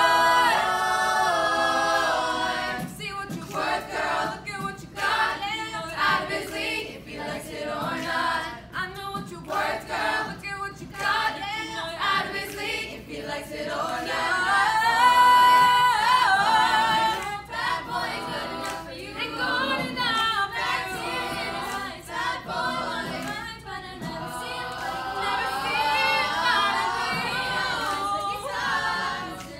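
Treble a cappella group of young female voices singing in close harmony, with sharp vocal-percussion clicks running underneath. The sound swells loudest about halfway through.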